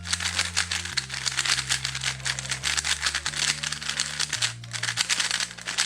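Gan 12 Maglev speedcube being turned rapidly for its first turns out of the box, a dense run of plastic clicks and clacks. Background music with a low bass line plays underneath.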